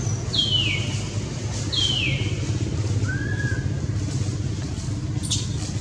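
A steady low motor rumble like a nearby engine running. Over it come two high calls sliding downward in the first two seconds, a shorter arched call about three seconds in, and a sharp click near the end.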